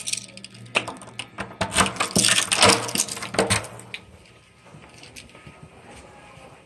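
A bunch of keys jangling and clinking in a rapid flurry of metallic clicks, thickest about two to three and a half seconds in, over a low steady hum that stops about four seconds in.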